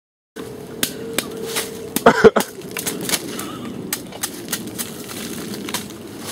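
Irregular sharp crackles and snaps of dry leaf litter and twigs under shifting feet, with a louder cluster of snaps about two seconds in.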